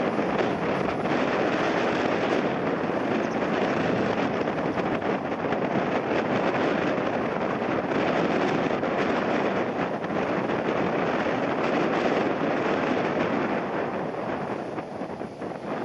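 Jet airliner's engines running loud and steady with a crackling edge as the plane lands, mixed with strong wind buffeting the microphone; the noise eases a little near the end.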